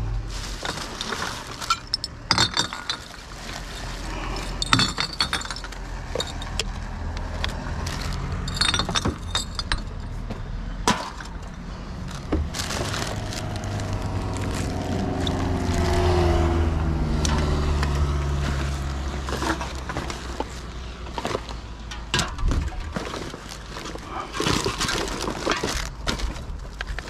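Glass bottles and aluminium cans clinking and knocking, with plastic bags rustling, as gloved hands rummage through a bin of rubbish. A low rumble swells to a peak about halfway through and then fades.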